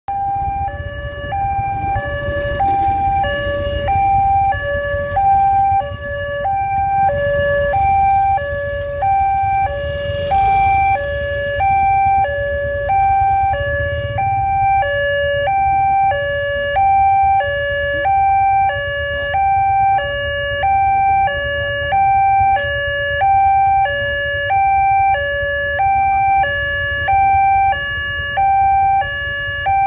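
Railway level-crossing warning alarm sounding, a two-tone electronic chime that alternates a high and a low note steadily, about one pair a second: the signal that a train is approaching and the crossing is closing. A low engine rumble runs underneath.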